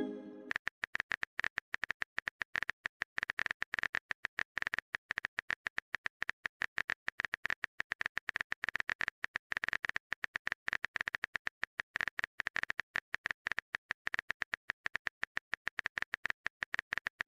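Keyboard typing sound effect: a long run of quick, evenly spaced clicks, many a second, as a chat message is typed out.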